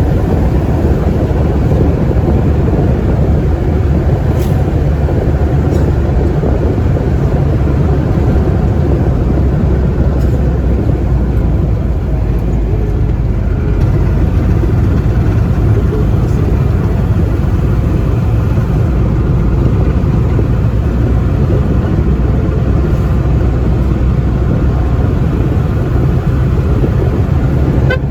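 A vehicle on the move: steady engine drone under a constant rush of road and wind noise.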